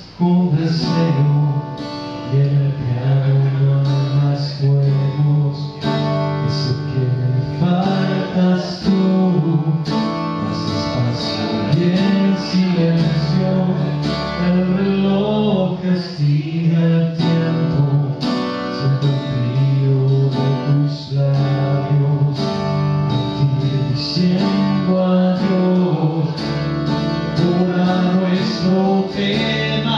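Acoustic guitar strummed and picked, with a man singing at the microphone over it.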